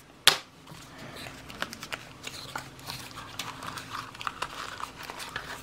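A sharp plastic click about a third of a second in, then quiet rustling, small ticks and scraping as hands handle a plastic battery case and a small cardboard box, with faint crinkling of packaging.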